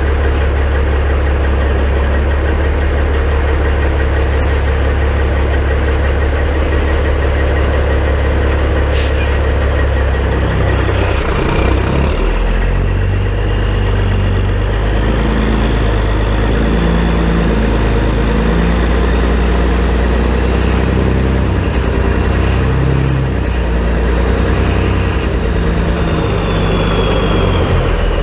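2006 Peterbilt 379's diesel engine idling steadily, then its note shifts and varies from about twelve seconds in as the truck works at low speed. A thin whine rises and falls through the second half, and a few sharp clicks sound in the first half.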